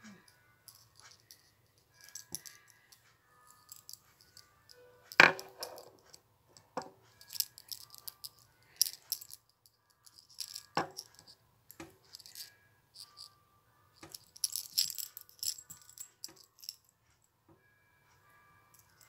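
A metal keychain and small metal nail-care tools being handled: scattered light clicks, taps and jangles, with a sharp click about five seconds in and another near eleven seconds.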